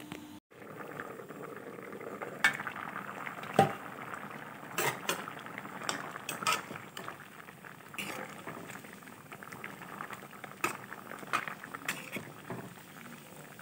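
A pot of banana flower and potatoes boiling hard, bubbling steadily, with a ladle knocking and scraping against the metal pot as it is stirred, about a dozen sharp clinks spread through.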